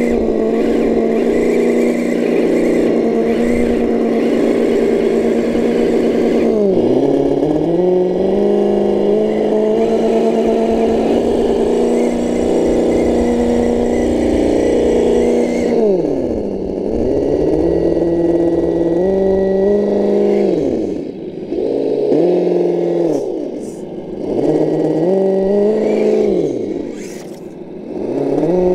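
Simulated V8 engine sound from the RC crawlers' Reely V8 sound modules. It holds steady revs at first, drops in pitch about seven seconds in, then falls and climbs again several times in the second half, like a throttle being eased off and reapplied.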